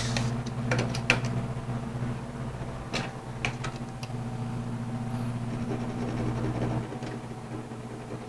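Steady low machine hum, like a motor or fan running, with a few sharp knocks and clicks of wooden boards being handled about one second in and again about three seconds in. The hum drops away near the end.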